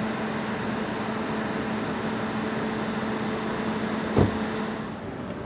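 A steady mechanical hum holding one pitch, with a single knock about four seconds in; it gets a little quieter near the end.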